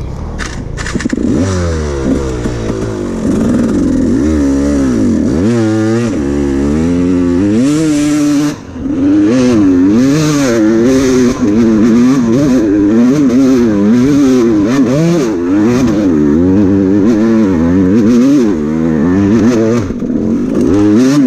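Enduro dirt bike engine being ridden hard over rough trail, its revs rising and falling constantly as the throttle is worked. It dips for a moment about eight seconds in and runs louder after that.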